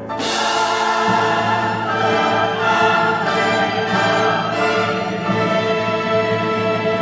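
Orchestral film-score music with full, sustained chords, coming in with a sudden loud swell at the start.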